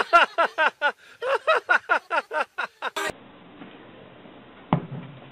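A person's voice in quick repeated bursts, about four or five a second, each rising and falling in pitch, in the manner of laughing or whooping. It stops abruptly about three seconds in, leaving a low steady hum with one sharp knock near the end.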